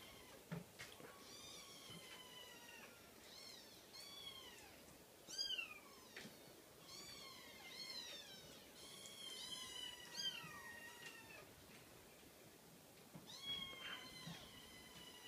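Cream Scottish fold kitten meowing again and again in short, high-pitched calls that rise and fall in pitch. The calls break off for about a second and a half about two-thirds of the way through, then start again.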